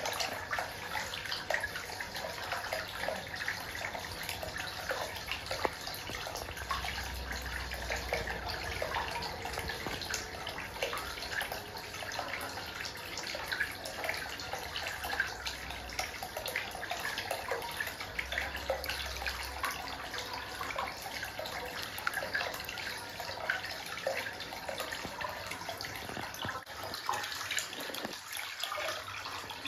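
Hot-spring water pouring from a pipe spout into an open-air bath, a steady splashing trickle on the pool's surface.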